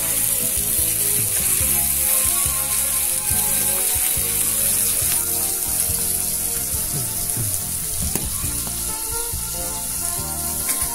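Swordfish steak and butter sauce frying on hot iron over a wood fire: a steady sizzle.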